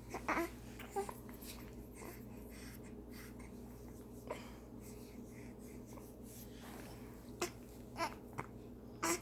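A baby hiccuping: about six short, sudden hiccups spaced a second to three seconds apart, with soft breathing and small vocal noises in between.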